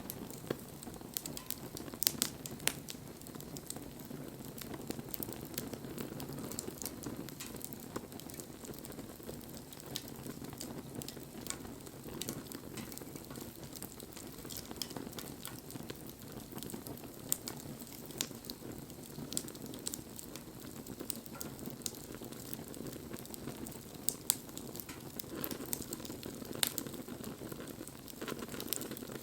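Wood fire crackling: frequent small snaps and pops over a steady low hiss of burning, with a few sharper pops about two seconds in.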